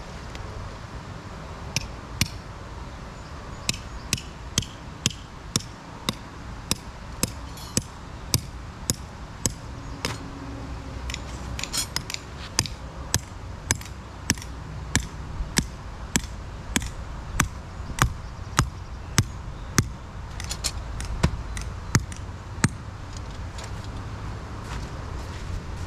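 A hammer striking a steel ground stake to drive it in and anchor an inflatable water slide's tie-down rope: a long series of sharp metallic strikes, about two a second, in several runs, stopping a few seconds before the end.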